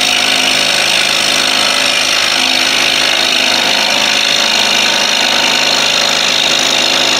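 Scroll saw running steadily with a number 9 modified-geometry blade, cutting through a thick wooden board.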